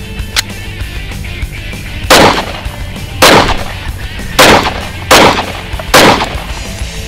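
Five single pistol shots from a Glock, unevenly spaced over about four seconds, starting about two seconds in. Background music plays underneath.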